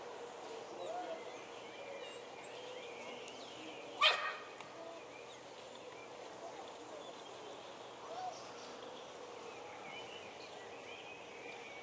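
A dog barks once, short and sharp, about four seconds in, over a hushed, faint background.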